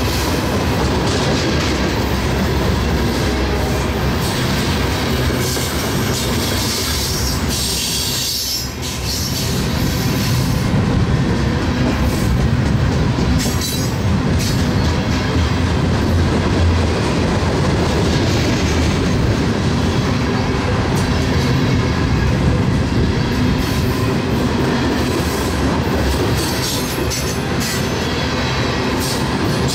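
A freight train rolling past on the track: the steady rumble and rattle of steel wheels on rail, with some wheel squeal.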